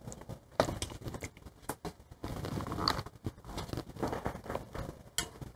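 Handling noise picked up by a clip-on microphone: soft rustling with scattered short clicks.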